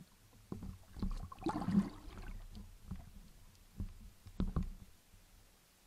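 Muffled underwater knocks and scraping from a speargun and a speared white sea bream being handled. The knocks come irregularly, with a thicker cluster of noise about a second and a half in and two sharp knocks near the end.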